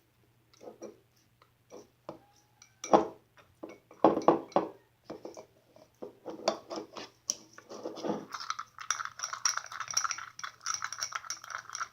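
Glossy slime being handled, giving irregular small clicks and pops that turn into a dense run of crackling about two-thirds of the way in.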